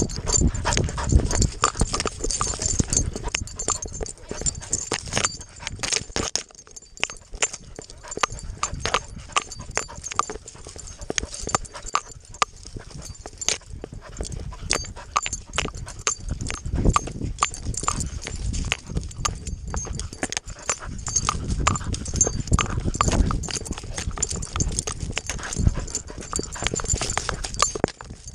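Chest-mounted action camera on a running dog: rapid, irregular thumps of its paws and jolts of the camera mount, with dry grass brushing past and the dog panting close to the microphone.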